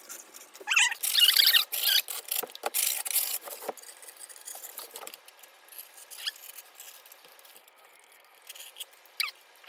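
Razor blade slicing through skateboard grip tape along the deck's edge: scratchy, hissing strokes with squeaky chirps, loudest in the first few seconds, then fainter scraping with an occasional squeak.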